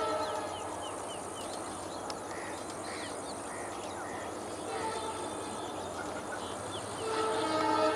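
Indian Railways express train sounding its multi-tone horn in several held blasts, the loudest starting about seven seconds in, over the steady rumble of the train rolling along the track. Small birds chirp.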